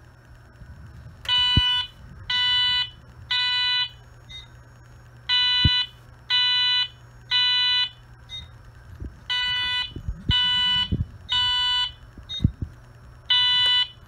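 A fire alarm panel's sounder beeps a high tone in temporal code-3: three beeps about a second apart, a pause, then again, for three full groups and the start of a fourth. It shows that the System Sensor i3 photoelectric smoke detector has sensed smoke from burning paper and put the system into alarm. A few light knocks sound between the beeps.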